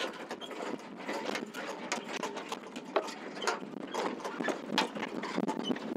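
Sailboat rigging and sail hardware clicking and rattling irregularly while the headsail is handled at the bow.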